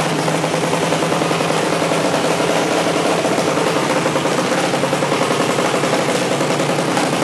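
Air-cooled single-cylinder engine of a Pro Jr. mini drag bike running steadily, with rapid even firing pulses and no revving.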